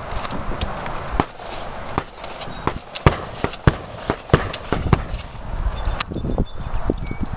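Footsteps at a walking pace: a run of sharp knocks about every half second, with a few louder knocks and clicks among them.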